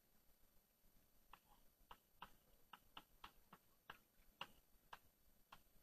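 Faint chalk taps on a blackboard as a formula is written: a string of irregular clicks, about three a second, starting about a second in.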